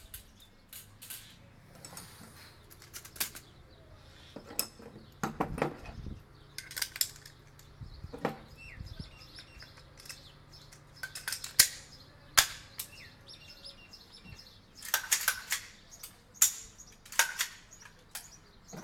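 M16 rifle being reassembled by hand: an irregular series of sharp metallic clicks and clacks as the bolt carrier, charging handle and receiver parts are fitted and snapped together, the loudest clack about halfway through.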